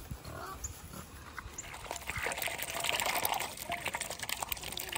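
Muscovy duck dabbling its bill in a bowl of water with feed in it: quick wet splashing and slurping that starts about two seconds in.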